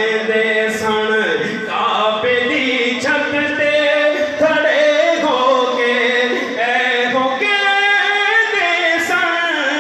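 A man singing a Punjabi naat unaccompanied into a microphone, drawing out long held notes that slide and waver in pitch.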